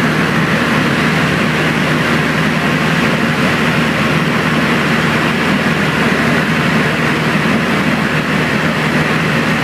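Light aircraft engine and propeller running steadily in cruise, heard inside the cabin as a loud, even drone mixed with rushing airflow noise.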